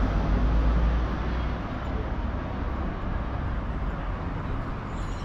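A motor vehicle passing close by, its low rumble loud at first and fading away about a second in, leaving steady city street noise.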